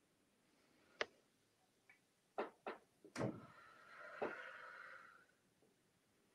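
A few faint sharp clicks and taps, four in the first three seconds or so, then a faint hiss lasting about two seconds.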